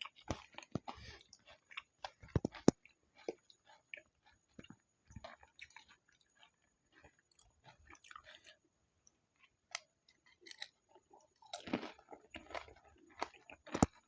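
Close-up chewing and crunching of pani puri: crisp puri shells cracking between the teeth with wet mouth clicks. The crunches come thick in the first few seconds and again near the end, with quieter chewing in between.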